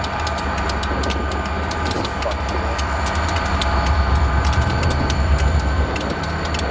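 Several diesel-electric freight locomotives standing and idling, a steady low engine rumble with scattered sharp clicks over it.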